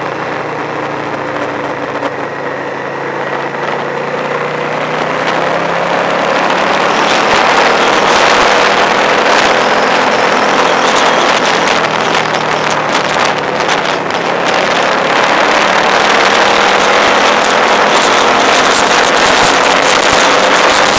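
Vehicle engine running on the road with wind rushing over the microphone; both grow louder from about six seconds in as the pace picks up, and the engine note dips and rises with the throttle. Wind buffeting adds fluttering in the second half.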